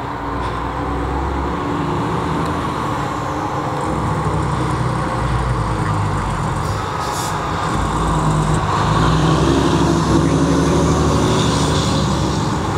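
Heavy fire rescue truck's diesel engine running as the truck pulls away and drives past, growing louder as it approaches, with a peak about ten seconds in.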